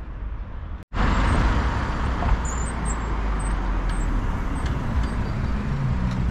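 Road traffic noise: cars passing by as a steady rumble and hiss, louder from about a second in.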